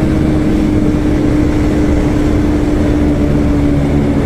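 KTM RC 200's single-cylinder engine running at road speed, its note drifting slowly lower in pitch as the throttle eases, with wind rushing over the microphone.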